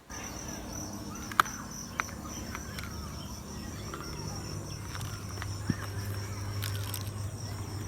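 A few sharp clicks and taps, the loudest about a second and a half in, of tools or parts being handled on a phone being taken apart, over a steady background with a high thin tone and a low hum.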